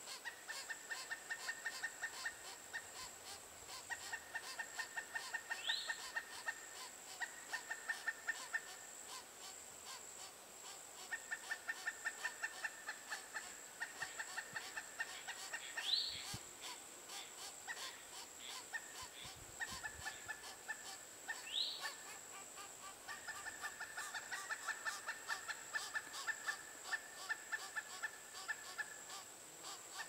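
Pileated woodpeckers calling: repeated runs of rapid, evenly pulsed notes, each lasting one to several seconds, with pauses between them. Three short rising notes come at intervals, the loudest about halfway through, and a steady high whine runs underneath.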